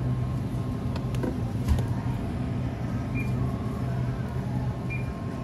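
Steady low hum of a supermarket freezer aisle, with a faint steady tone over it and one soft knock about a second and a half in.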